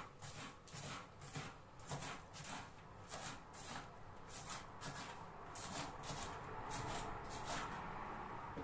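Knife chopping spring onion on a chopping board: light, unevenly spaced cutting taps, about two a second.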